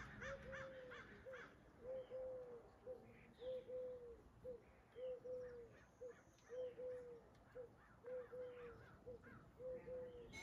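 A dove cooing a three-note phrase over and over, two drawn-out notes and a short one, about every one and a half seconds. Crows caw faintly in the first second or so.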